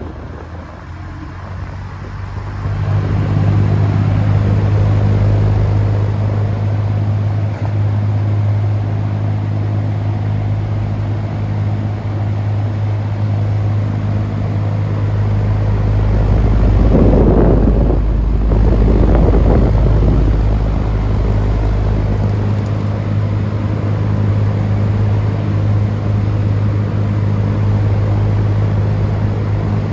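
Vintage General Electric box fan running: a steady electric motor hum over the rush of moving air. It grows louder about three seconds in, and a deeper rumble joins it for several seconds past the middle.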